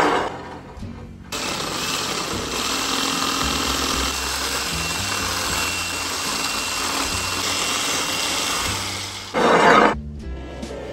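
Electric hand mixer running steadily at speed, its beaters whipping egg whites, with a thin steady whine over the motor noise; soft background music underneath. A short loud rush of noise comes at the very start and another just before the mixer cuts off near the end.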